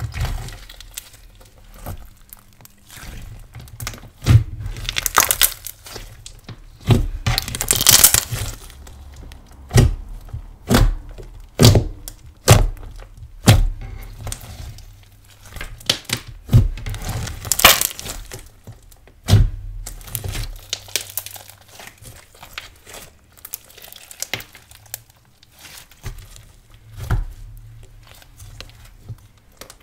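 Hands squishing, poking and folding a thick pearl slime: an irregular run of sticky crackles and air-pocket pops, with a few longer squelches where it is pressed or pulled.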